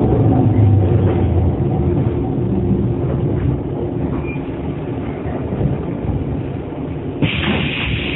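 JR 115 series electric train motor car running, heard from inside: a low rumble with humming tones that fade as the level slowly drops. About seven seconds in, a sudden loud hiss starts and carries on.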